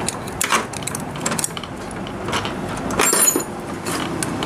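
Small metallic clicks and taps of a spanner on a motorcycle head's rocker-arm tappet adjuster and lock nut as the valve clearance is set with a feeler gauge. There is a brief metallic ring about three seconds in.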